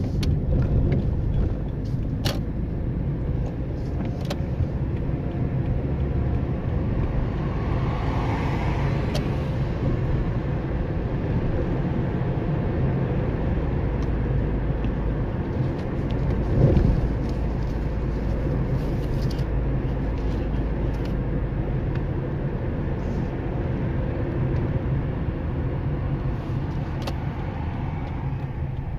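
A car driving, with a steady low engine and road rumble, a few faint clicks, and a brief louder swell about halfway through.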